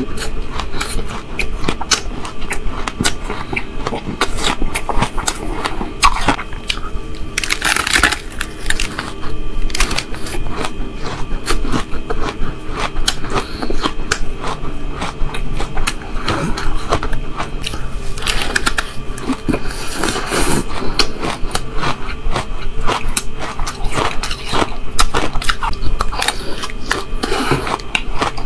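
Close-miked crunching and chewing of mouthfuls of shaved ice: a dense, crackly run of clicks that goes on without a break. A spoon scoops and scrapes through the ice in the bowl.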